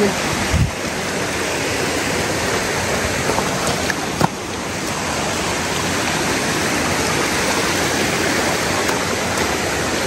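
Forest river water rushing steadily, with a low thump about half a second in and a short knock about four seconds in.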